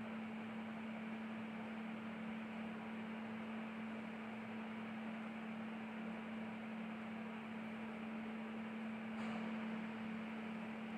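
A steady hum, one unchanging tone, over a faint even hiss.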